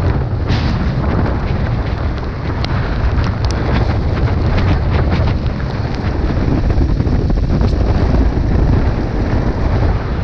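Wind buffeting on the microphone of a vehicle-mounted camera, riding in the rain: a loud, steady low rumble with many scattered sharp ticks that fit raindrops striking.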